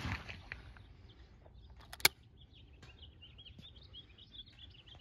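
A shotgun shot's report dies away, then about two seconds in comes a single sharp metallic click as the over-under shotgun is broken open to eject the spent shell. Faint bird chirps follow in the second half.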